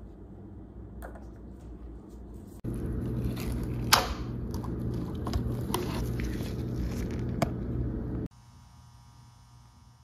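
Electrolysis rust removal running in a steel motorcycle gas tank: a battery charger humming steadily while the washing-soda solution fizzes and crackles with gas bubbles at the steel anode. The hum and fizzing get louder about two and a half seconds in, with a sharp click near four seconds.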